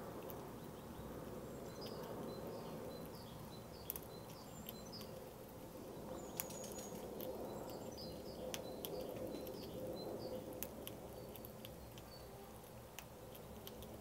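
Faint runs of short, high small-bird chirps, with scattered sharp clicks from a Eurasian red squirrel gnawing a nut, over a steady low background noise.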